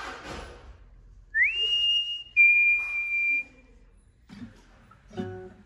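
Someone whistling two held notes: a quick upward slide into a high note, then a note a little lower.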